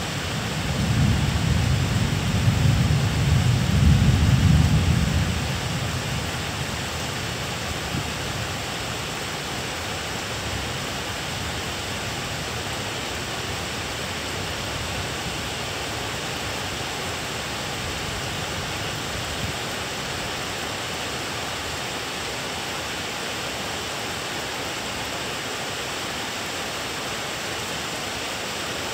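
Distant thunder rumbling for the first five or six seconds, swelling about four seconds in and then fading away, over a steady hiss of rain that carries on unchanged.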